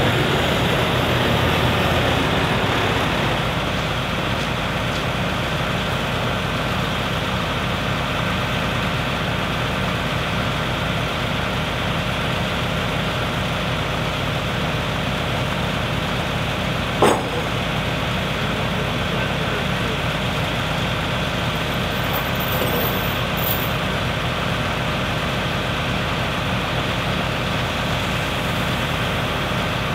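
Semi truck's diesel engine idling steadily, a little louder for the first few seconds before settling. One sharp metallic click about 17 seconds in.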